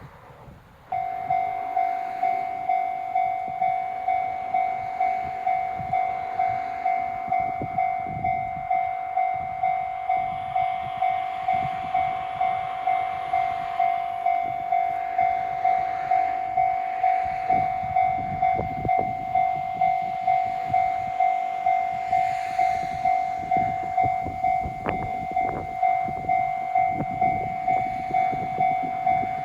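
Japanese level-crossing warning bell switches on about a second in and then rings steadily, a little under two dings a second, as the crossing activates for an oncoming train. In the second half a train runs past under the bell, its wheels knocking over the rail joints.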